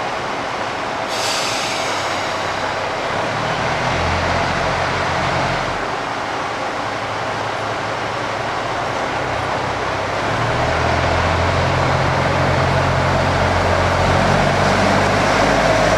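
KiHa 85 diesel railcar's Cummins engines throttling up as the train pulls away from the platform, the engine note coming up twice and growing louder as the cars pass. A short hiss of air about a second in.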